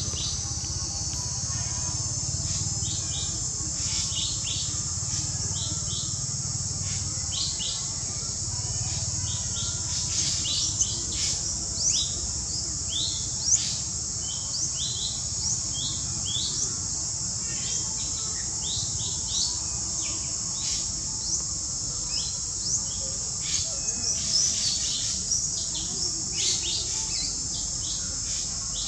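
Outdoor ambience of small birds chirping, short quick calls repeated all through, over a steady high-pitched hiss.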